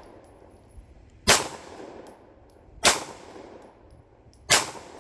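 Three pistol shots from a Fusion XP Pro, spaced about a second and a half apart, each a sharp crack with a short echoing tail.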